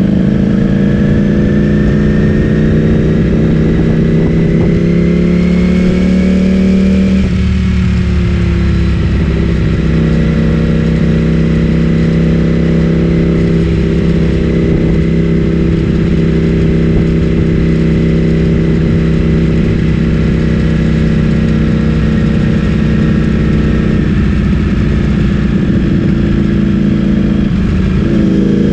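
Ducati Streetfighter V4S's V4 engine through an Akrapovic full-system exhaust, under way: the engine note rises steadily for about seven seconds, drops sharply, then runs at a fairly even pitch with small dips near the end.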